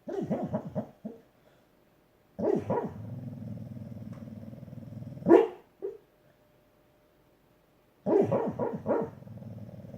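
Loud snoring in three breaths: rattling pulses at the start, a long drawn-out snore from about two and a half seconds in that ends in a sharp snort, and another rattling snore near the end.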